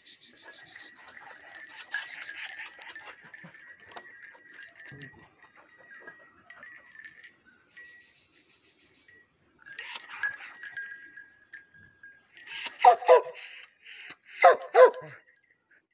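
Chained dog barking in two short bouts of several barks near the end. Before that there is light metallic jingling and ticking.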